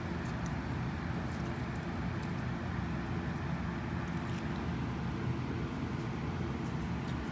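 A steady low mechanical hum with a faint hiss over it, unchanging throughout, with no distinct knocks or clicks.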